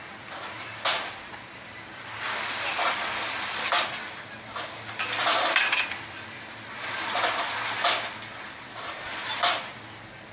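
Repeated metal clanks and rattles over swells of rushing noise, as vehicles drive over a ferry's steel loading ramp and deck; the sharp knocks come every second or two.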